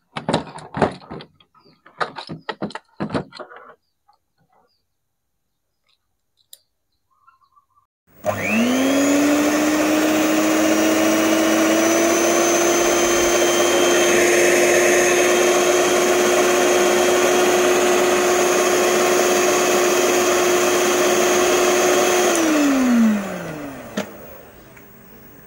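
Philips hand mixer motor switched on about eight seconds in, quickly rising to speed and running steadily at one pitch with its beater spinning, now turning again after the repair of a fault where it only hummed and would not rotate. Near the end it is switched off and winds down with a falling pitch. A few clicks and knocks from handling the mixer come first.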